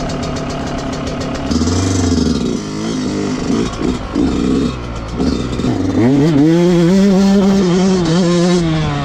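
Yamaha YZ125 two-stroke motocross bike idling, then blipped in short revs and pulling away. From about six seconds in the engine climbs and holds a high, steady note, dipping and rising again near the end as it shifts. The bike is new and being run in.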